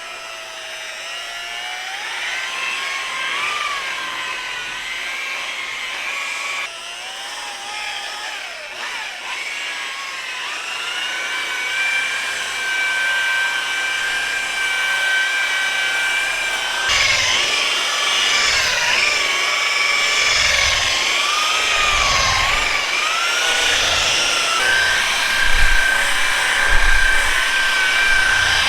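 Electric paint buffer running and buffing freshly colour-sanded paint to a gloss: a steady motor whine whose pitch sags and recovers as the pad is worked against the surface, changing abruptly about 7 and 17 seconds in.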